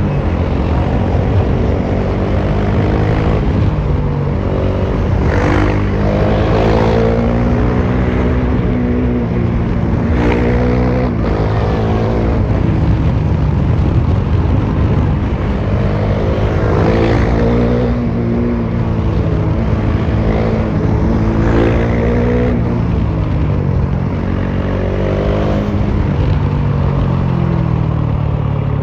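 Bajaj Dominar 400's single-cylinder engine with its muffler removed, running loud through the open exhaust while riding. The revs climb and drop back about five times.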